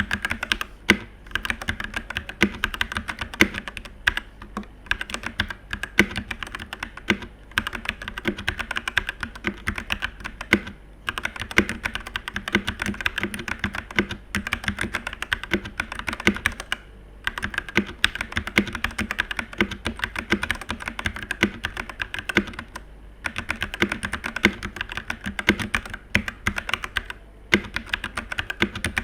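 Typing test on a VortexSeries VX8 Pro 75% mechanical keyboard fitted with Gateron Red linear switches: fast, continuous key clacks with a few brief pauses every few seconds.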